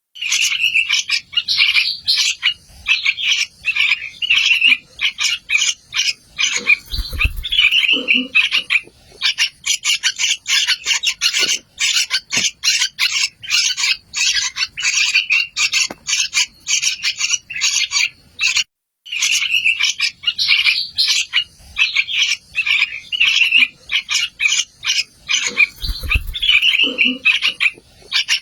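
Yellow-vented bulbul (trucukan) nestlings giving rapid, high-pitched chirping calls without a break, with a low thump twice.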